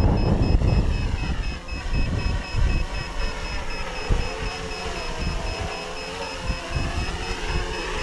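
Small FPV quadcopter's electric motors and propellers whining, the pitch sliding down and back up as the throttle changes while it flies low against the wind. Gusts buffet the microphone, and a rapid high-pitched beeping runs along with it, stopping near the end.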